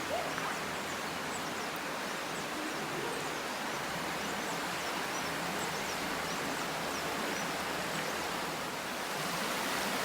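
Steady rushing of a flowing stream, an even hiss of moving water, with faint short high chirps above it.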